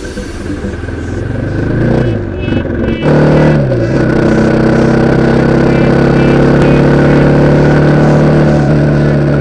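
Motorcycle engine pulling hard, its pitch climbing and then dropping at a gear change, before settling into a steady run at constant speed.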